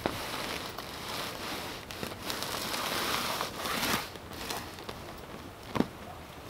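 Canvas wall-tent fabric rustling and crinkling as it is handled, with scattered crackles and one sharp click near the end.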